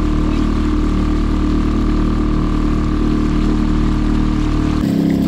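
A kayak's outboard motor runs steadily at cruising speed, pushing the boat along. Near the end it cuts abruptly to a different steady engine note.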